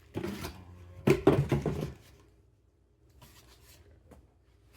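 Two short bouts of thunks and clattering, a brief one at the start and a louder, longer one about a second in, as packaging scraps set out as crawl obstacles are knocked about on a hard surface.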